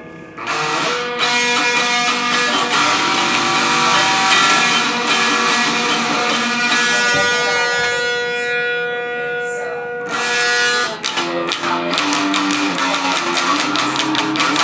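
Electric guitar music in a metal track: long held notes ring out for about ten seconds, then a fast, rhythmic picked riff starts.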